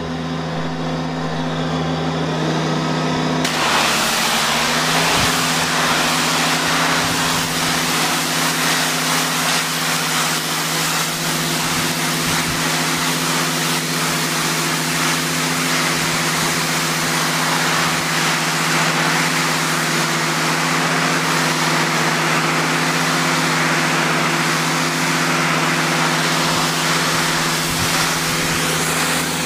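Diesel engine of a hydraulic pressure-washing rig running steadily. About three and a half seconds in, a loud steady hiss joins it and carries on.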